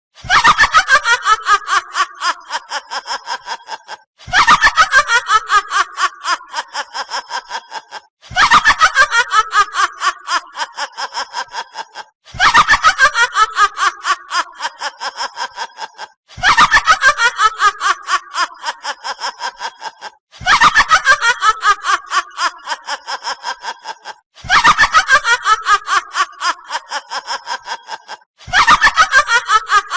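Witch's cackling laugh sound effect: a rapid run of "ha" pulses that starts loud and high, falls in pitch and fades over about four seconds. The same cackle repeats in a loop about every four seconds.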